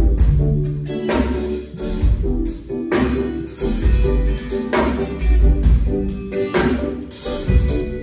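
Live band playing at a sound check, amplified through the hall's speakers: drum kit with a heavy bass pulse and a sharp hit every second or so, with guitar over it.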